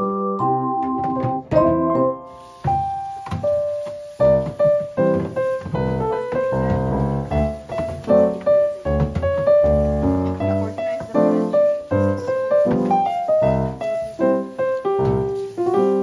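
Background piano music: a steady flowing melody of single notes over a bass line.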